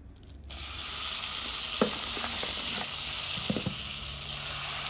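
Seasoned pork pieces going into hot curry oil in a pot: a loud sizzle starts suddenly about half a second in and keeps going steadily, with a few knocks as pieces land.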